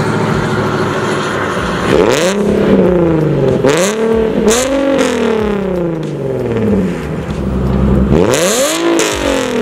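Nissan 370Z's 3.7-litre V6 breathing through a Tomei Ti titanium single-exit exhaust, revving up hard several times and falling back in long sweeps of pitch, with a raspy blare at each peak.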